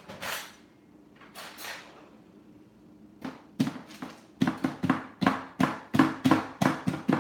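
Large kitchen knife chopping down repeatedly through peanut brittle in a parchment-lined baking pan, a quick run of sharp knocks about three a second starting around three seconds in. The brittle has set soft and crumbly, its sugar crystallized like a praline rather than hard.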